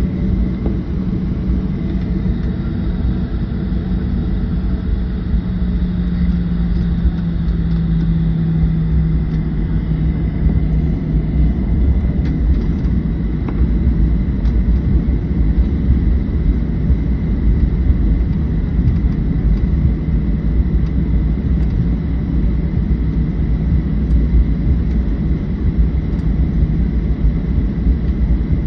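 Steady low rumble of a Boeing 737-700's CFM56-7B jet engines heard inside the cabin during departure. A low hum in it drops slightly in pitch a few seconds in, over a faint steady high whine.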